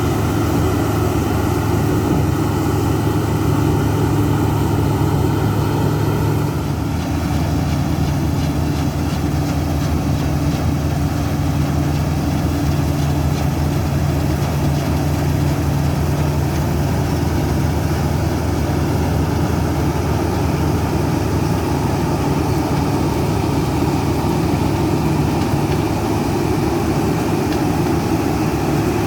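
Large diesel farm machinery running steadily at harvest, with a low, even engine drone. The sound shifts abruptly about six and a half seconds in.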